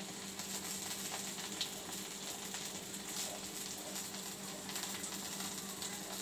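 Steady faint hiss with a low hum and a few faint ticks: background room tone.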